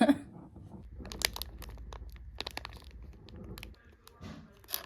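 Packaging being handled: a quick run of crinkling, crackling and tearing sounds, then a few softer rustles near the end.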